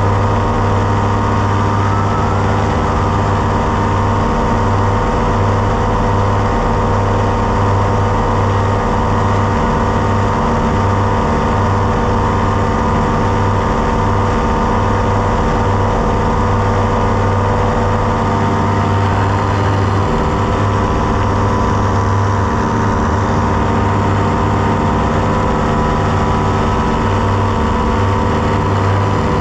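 Tandem paramotor trike's engine and caged propeller running steadily, a loud, even drone without letting up.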